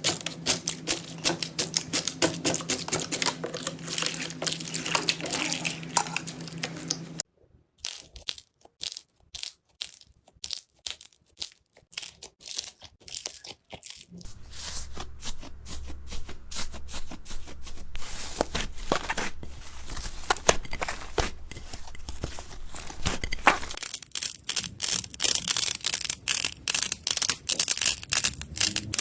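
Slime being squished and stretched close to the microphone, making dense crackling and popping clicks. The texture and background change sharply about 7 and 14 seconds in, as one clip gives way to the next.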